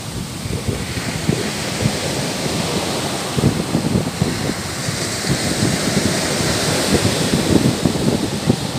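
Ocean surf breaking and washing up a sandy beach, a steady rushing wash, with wind buffeting the microphone in frequent low thumps.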